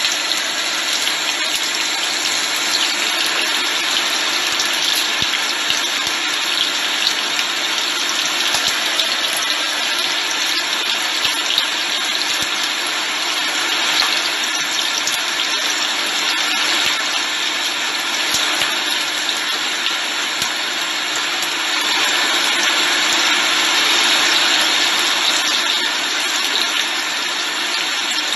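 Ginger, garlic and chili sizzling steadily in hot sesame oil in a frying pan, with fine crackling: the aromatics being fried until golden.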